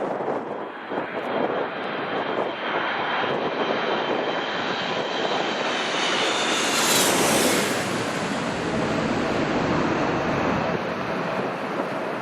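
Jet airliner passing low overhead, its engine noise building to a peak about seven seconds in, with a whine that falls in pitch as it goes by, then easing off.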